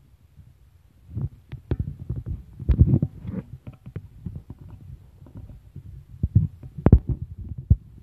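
Handling noise on a phone's microphone: irregular low thumps, knocks and rubbing, loudest about three seconds in and again near seven seconds.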